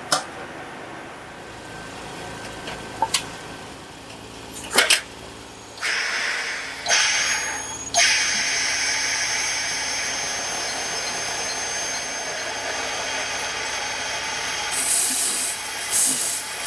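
Workshop machinery in a glass factory: a few sharp knocks, then a machine starts and runs steadily with a hiss and a high whine, with quick hissing bursts near the end.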